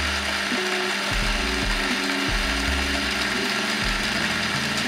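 Rancilio Stile espresso grinder, its 58 mm flat burrs turning at 1200 RPM, grinding a 20 g dose of coffee beans: a steady, even grinding noise.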